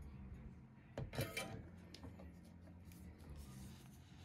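Faint handling noise as a wire is worked onto a toggle switch's solder terminal: a brief rustle and knock about a second in, over a low steady hum.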